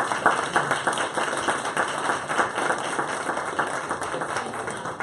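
Audience applauding, many hands clapping, dying down near the end.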